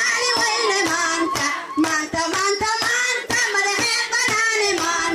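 High voices singing a bending melody, with rhythmic hand clapping about three times a second.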